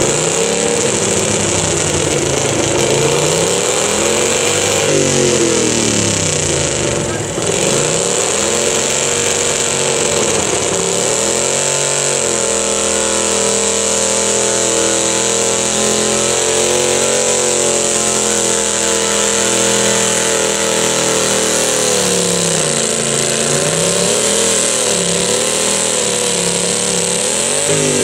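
Modified garden tractor engine running hard while pulling a weight-transfer sled, its pitch swinging up and down every couple of seconds. It holds steadier at high revs for about ten seconds in the middle, then swings again near the end.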